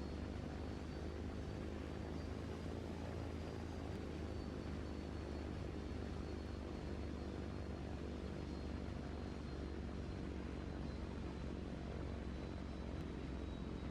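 A steady, low engine drone with a faint high-pitched whine above it.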